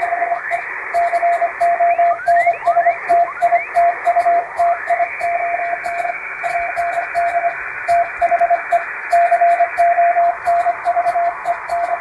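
Morse code sent as a steady tone of about 700 Hz, keyed in quick dots and dashes, spelling out an English telegram text. Behind it runs a hiss of shortwave-style static with whistling sweeps that rises and falls, added to imitate fading radio reception.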